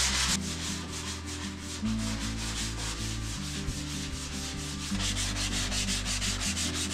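Drywall joint compound on a ceiling being hand-sanded with a sanding block, a raspy scrubbing in quick, even back-and-forth strokes.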